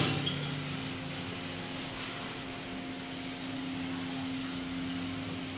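Steady mechanical hum with one low tone held throughout, the constant background drone of a busy kitchen.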